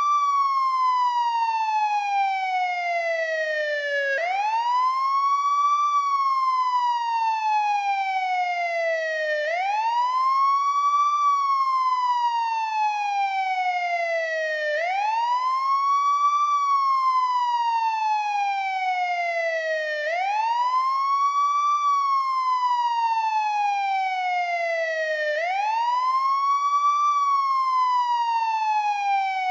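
Older-model NYPD police siren on its wail setting: a tone that sweeps up quickly and then glides slowly down, repeating about every five seconds.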